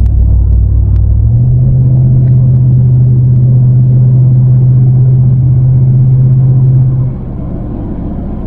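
Vehicle engine running with a low rumble. Its drone steps up to a higher steady note about a second in, holds, then drops back and quietens about seven seconds in, as when a driver accelerates and then lets off.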